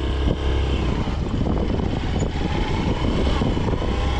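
Motorcycle engine running steadily with a deep rumble as the bike rides slowly along a dirt track.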